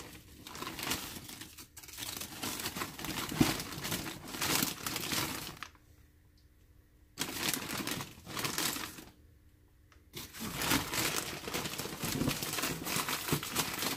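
Crinkly rustling and tearing from handling the corn for the soup, in three stretches with short quiet gaps between them.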